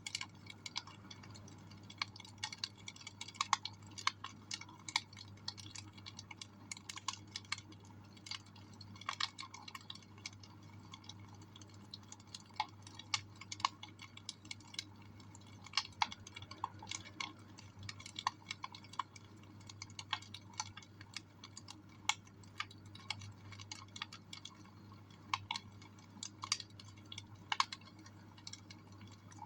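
Wood fire in a fireplace crackling, with irregular sharp pops and snaps.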